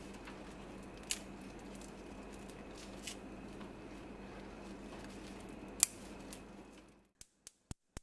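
Kitchen sounds of fresh rosemary sprigs being laid into a pot of pineapple chunks: a steady hum with a few sharp clicks and taps, the loudest near the six-second mark. About seven seconds in the hum stops, and a quick run of sharp clicks follows, about four a second.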